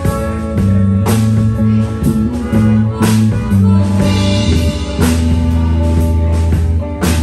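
Live rock band playing an instrumental passage: electric guitars over steady low bass notes, and a drum kit with a cymbal crash about every two seconds.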